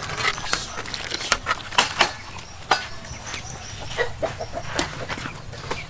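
Chickens clucking, amid many scattered short, sharp clicks and knocks.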